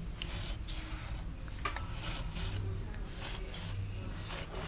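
Kitchen knife scoring the skin and flesh of a whole wallago catfish on a wooden cutting board: a quick series of short scraping cuts, roughly two to three a second.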